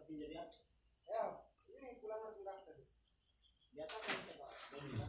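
A steady high-pitched insect trill that stops about three-quarters of the way through, under low murmured voices.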